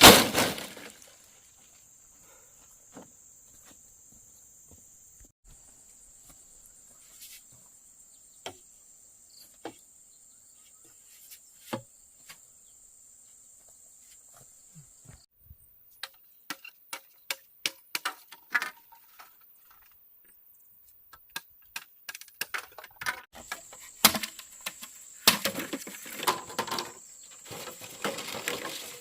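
Insects chirring in a steady high buzz, which shifts to a higher pitch for several seconds midway. Scattered knocks, snaps and taps of handwork sound over it, sparse at first and busier later, with a loud hit at the very start.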